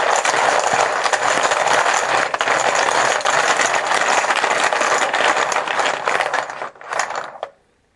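Steady rattling of small hard objects shaken together, stopping suddenly near the end, as in a random draw to pick a team.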